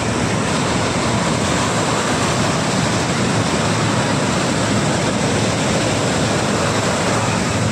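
Steady rush of ocean water, an even hiss with no swells or breaks, with a low hum underneath.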